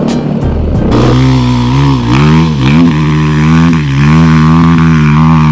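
Enduro dirt bike engine running close by, its revs rising and dipping several times under throttle, then holding a steadier note near the end.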